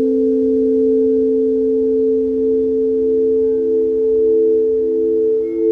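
Crystal singing bowls sung by circling mallets around their rims: two pure tones held steadily together, with a third tone coming in about two seconds in and swelling and fading in a slow pulse.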